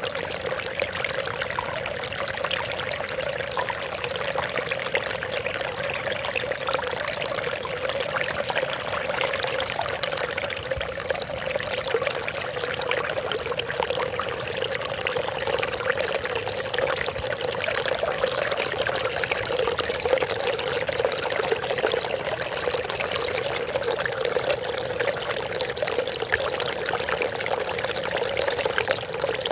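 Trickling water splashing steadily without a break.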